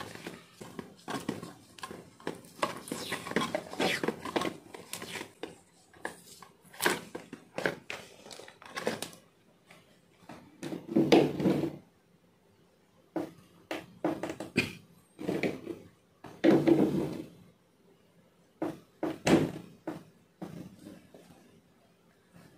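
Plastic clicks and rattles of hands handling an LED downlight and its cable, with a few louder, duller sounds about a second long in the second half.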